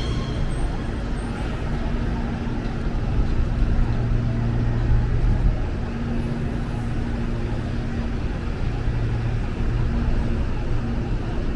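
Steady low rumble of a vehicle, with a low hum that swells and fades several times.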